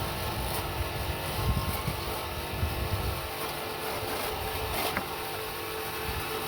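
HZ05 livestock-feed grass chopper, driven by a 200-watt (1/4 HP) electric motor, running steadily with a constant hum. An uneven low rumble runs under it, and there is a sharp click about five seconds in.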